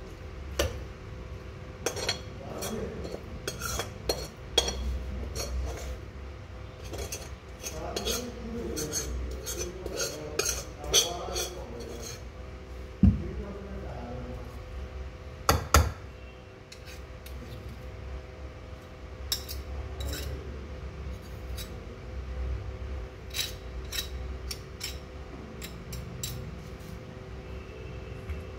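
Metal spatula and slotted spoon scraping and tapping against a steel kadhai and steel bowl as cooked vegetable is scooped out: irregular clinks and scrapes, with a few sharper knocks at about thirteen and sixteen seconds in, over a steady low hum.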